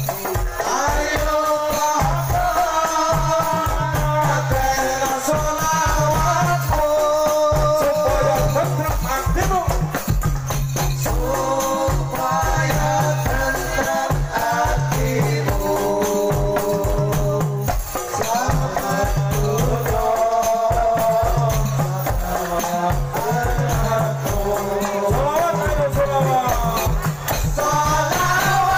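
Sholawat, Islamic devotional songs in praise of the Prophet, sung live as a melodic line over a steady drum-and-jingle beat of hadrah frame drums, heard through a large outdoor sound system.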